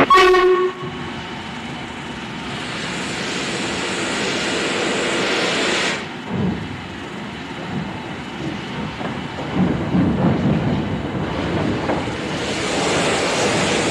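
Steam locomotive starting away: a short whistle at the very start, then a loud hiss of steam that cuts off suddenly about six seconds in, followed by uneven low exhaust puffs and more steam noise.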